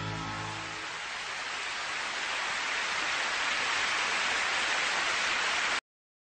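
The band's final held chord fades out in the first second, then audience applause builds and is cut off suddenly near the end.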